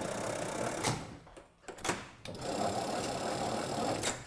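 Hand-cranked inductor of a mechanical signal box's block instruments whirring as the crank is turned, in two spells: about a second, a click and a short pause, then about two seconds more. This is block signalling being worked, as when a block command is given back to the signal box.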